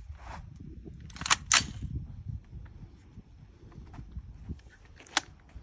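Suppressed LMT AR-style rifle firing steel-case Wolf ammunition: two sharp shots in quick succession about a second in, and a third about four seconds later.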